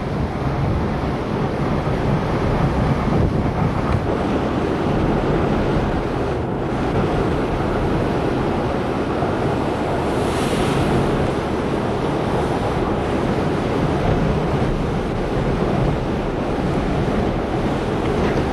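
Hurricane-force wind and heavy surf as a steady, dense rush, with wind buffeting the microphone.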